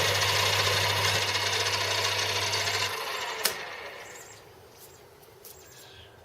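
Metal lathe running a facing cut on a casting mounted on its faceplate: a steady motor hum under a scraping cut. About three seconds in the motor is switched off and the sound dies away. A single sharp click follows about half a second later.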